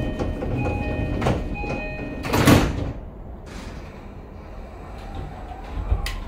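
A commuter train's sliding passenger doors closing. A repeating chime sounds for about two seconds, then the doors shut with a loud rush and thud about two and a half seconds in. A softer knock and a low rumble come near the end as the train gets ready to pull away.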